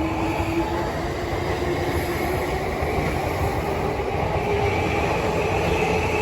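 Electric commuter train moving at the platform: a steady rumble of wheels and running gear with faint whining tones from the motors.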